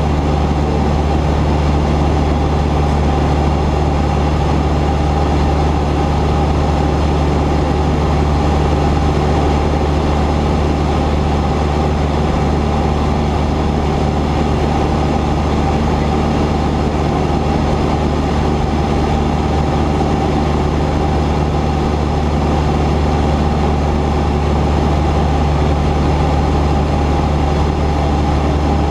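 Cessna 172's piston engine and propeller running steadily, a constant low drone that does not change in pitch or level.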